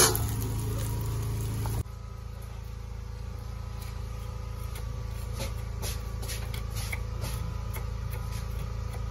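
A steel plate clanks once as it is set as a lid on a wok of frying meat, which goes on sizzling under it. After a cut, a knife taps lightly on a wooden chopping board, chopping shallots and green chillies, over a steady low hum.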